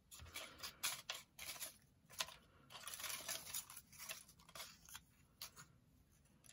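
Faint rustling and light clicking of small cut paper and card pieces being handled and sorted through by hand, dying away near the end.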